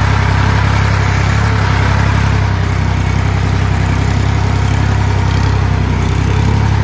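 Farm tractor's diesel engine running steadily under way, a low, even drone heard from the driver's seat.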